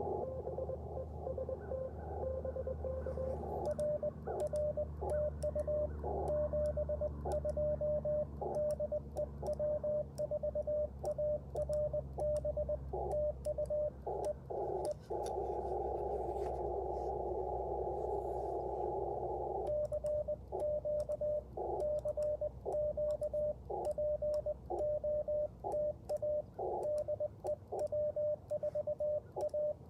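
Morse code (CW) from an Icom IC-705 transceiver: a single tone near 600 Hz keyed on and off in dots and dashes over receiver hiss, with light clicks of the twin-paddle key from a few seconds in. About halfway through the Morse stops for about five seconds of loud steady hiss, then resumes; a steady low rumble lies underneath.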